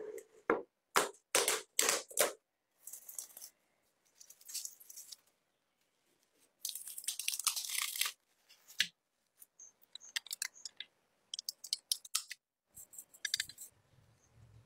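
Plastic packaging handled close up: sharp crinkles, then a longer rustle of bubble wrap being unwrapped about seven seconds in, followed by light clicks and scrapes of a blade working at the rusty metal model car.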